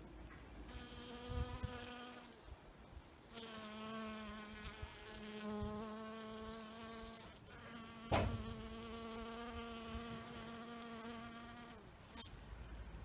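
European honeybees buzzing in flight close by: a steady, even hum that starts about a second in, breaks off briefly twice, and stops shortly before the end. A single short knock comes about two-thirds through.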